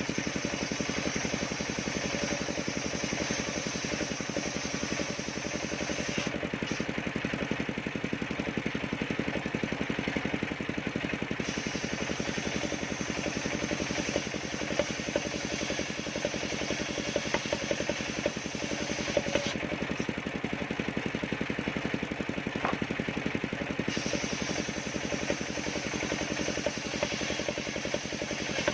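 Engine of a mobile circular sawmill running steadily with an even hum. Its upper hiss drops away twice for a few seconds.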